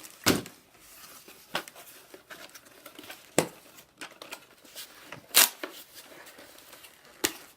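Plastic packaging crinkling and rustling as it is handled, in a few short, sharp rustles. The loudest comes about five and a half seconds in.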